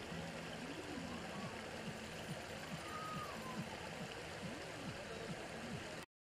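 Steady outdoor rushing noise with faint voices under it. It cuts off suddenly near the end.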